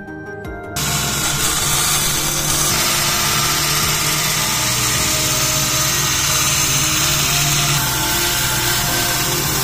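Bench belt grinder grinding the edge of a steel plate: a loud, steady grinding hiss that starts suddenly under a second in and holds level.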